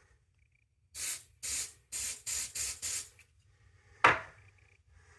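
Six quick hisses from an aerosol can of test smoke sprayed at a smoke detector to set it off, then a sharp click.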